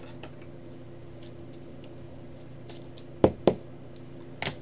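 Rigid plastic card toploader being handled: two sharp plastic taps about three seconds in and a thinner, higher click near the end, over a steady low hum.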